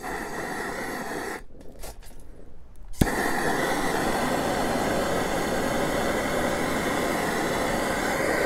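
Handheld gas torch hissing as its flame is held to the kindling in a rocket stove's feed tube. It weakens for about a second and a half, then after a sharp click about three seconds in it runs loud and steady again.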